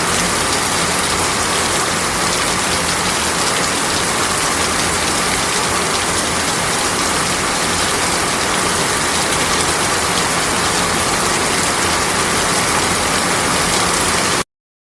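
Heavy rain falling steadily as a dense, even hiss of drops on surfaces, cutting off suddenly near the end.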